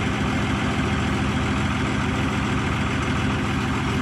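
Inboard six-cylinder Cummins diesel engine of a speedboat running steadily with an even drone.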